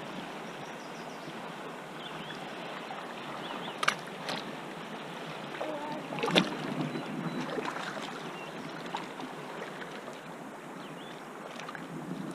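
Shallow river flowing over gravel, a steady rush of water, with a few splashes as a small child's feet step in the shallows, the sharpest about four seconds and about six seconds in.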